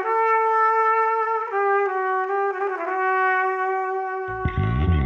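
Instrumental music: a slow melody of long held notes on a brass-like lead. A low bass and rhythm accompaniment comes in about four seconds in.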